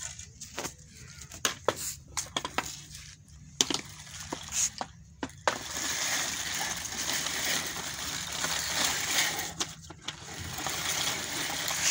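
Plastic baby walker knocking and clicking against a stick and the stone floor, then its small plastic wheels rolling with a steady rattling rush from about halfway as it is towed along.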